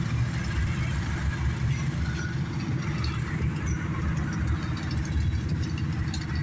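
Car engines running with a steady low rumble.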